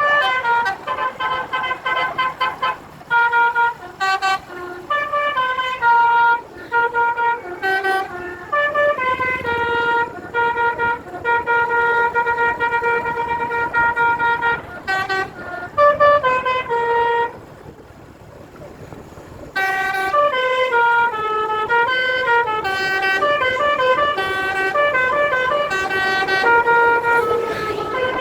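Basuri telolet melody horn playing a tune of stepped horn notes that change several times a second. It pauses for about two seconds about two-thirds of the way through, then plays again.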